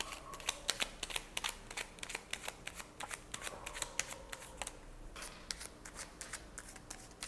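A deck of tarot cards being shuffled by hand: a quick, irregular run of small card snaps and slaps, with a brief pause about five seconds in before the shuffling resumes.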